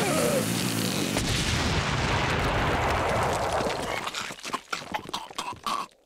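Cartoon sound effects: a vacuum cleaner running in reverse blows out in a loud, steady rushing blast that deepens into a rumble, then a scatter of sharp thuds and pops over the last two seconds as the blast dies away.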